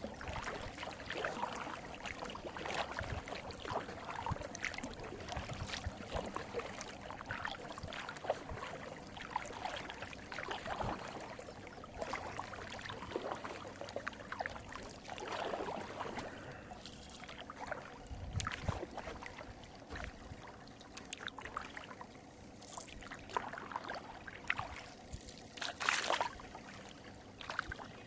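Kayak paddle dipping into lake water, with irregular splashes and drips running off the blades.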